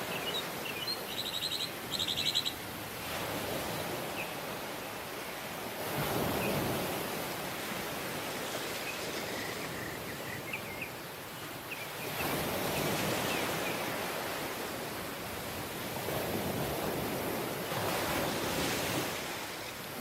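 Sea waves washing onto a tropical beach, the surf swelling and falling back several times. A brief high rapid trill sounds near the start, and faint thin chirps come about halfway through.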